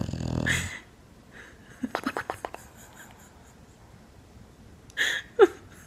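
English bulldog asleep, snoring and wheezing: a quick fluttering snort about two seconds in, then near the end a snuffle and two short whistling wheezes that slide down in pitch.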